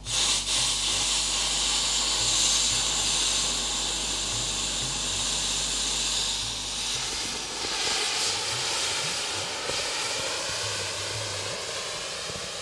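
ASPEE Duo LPG-fired thermal fogger jetting fog from its heated coil nozzle: a steady hiss that starts abruptly as the fogging lever is pressed. The hiss changes in tone about seven to eight seconds in.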